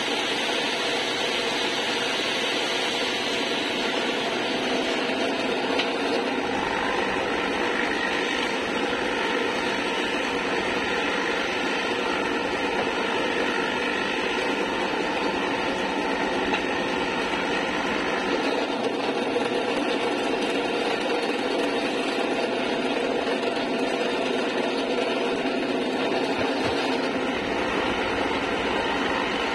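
Bench drill press motor running steadily while its bit cuts into a wooden board that is slid sideways under it, clearing a shallow recess.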